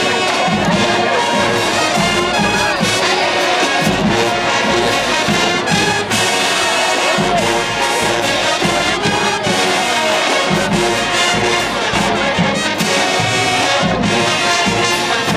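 HBCU-style marching band playing loudly: a full brass section of trumpets and trombones over a driving drumline.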